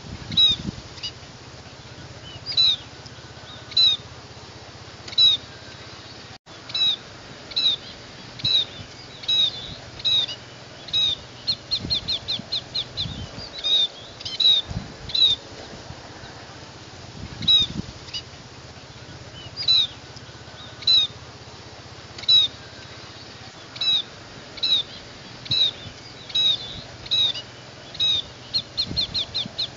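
Scaly-breasted munia giving short, high call notes, one every second or so with pauses, and a quick run of notes about twelve seconds in.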